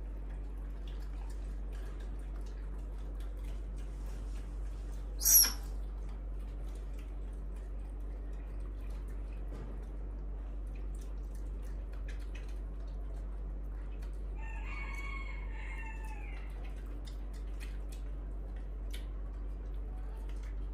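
Quiet room with a steady low hum and faint scattered clicks while monkeys eat and are spoon-fed from a steel bowl. A single brief, sharp high sound comes about five seconds in, and a faint drawn-out call about a second and a half long comes around fifteen seconds in.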